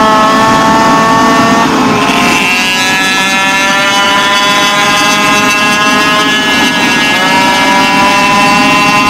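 Goped's modified two-stroke engine (a stroked, high-compression CY47) running hard under way. It revs up about two seconds in, holds the high pitch, and eases back near the end, with wind rushing over the microphone.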